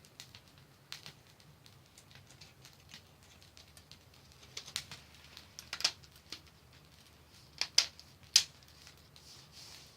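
Sparse clicks and light knocks of a saw and its blade guard being handled while the guard is worked back on, with two sharper clicks about eight seconds in.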